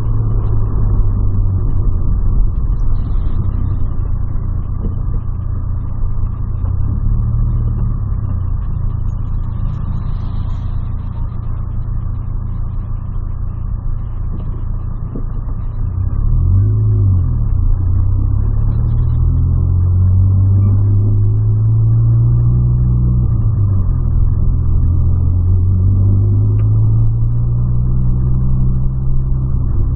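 2008 Volkswagen Polo heard from inside the cabin while driving: a steady engine hum with road noise. About halfway through it gets louder and the engine note rises as the car accelerates, twice in a row.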